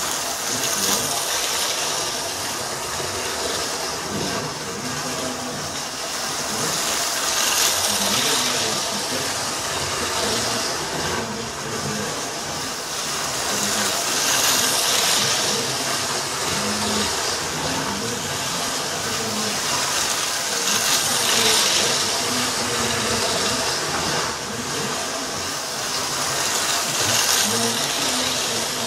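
Model railway train running on its track: a steady rolling, whirring noise that swells and fades every few seconds as it goes round.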